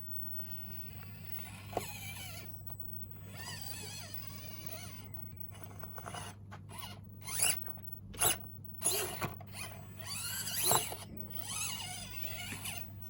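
Axial SCX24 micro rock crawler's small electric motor and gearbox whining in short bursts that rise and fall with the throttle, mixed with scattered clicks and knocks. The bursts grow louder and busier in the second half.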